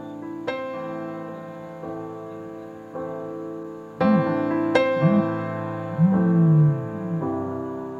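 Soft background piano music, with notes struck a few times. From about four seconds in, several short low sounds rise and fall in pitch, and one longer one falls. These are louder than the music.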